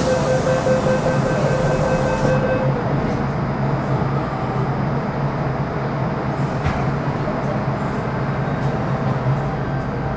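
Metro Cammell M-Train electric multiple unit running through the tunnel, heard from inside the car as a steady rumble of wheels and motors. For the first two seconds or so a steady whine from its GEC GTO chopper traction control sits over the rumble, then it stops and only the running rumble remains.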